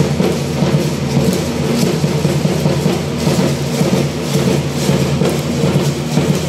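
Matachines dance music played live: a steady, driving drumbeat with the dancers' rattles clattering in rhythm.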